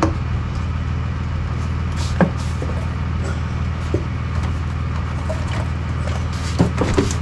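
A steady low mechanical hum runs throughout, with a few sharp clicks and knocks from the stock plastic air intake box and its fittings being worked loose, about two seconds in, about four seconds in and several near the end.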